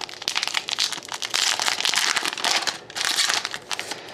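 Trading card pack wrapper crinkling and rustling as it is handled, in uneven surges of crackle.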